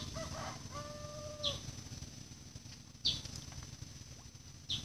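Outdoor animal calls: a short high chirp repeating about every second and a half, and near the start a held, even-pitched call lasting under a second, over a thin steady high whine and a low rumble.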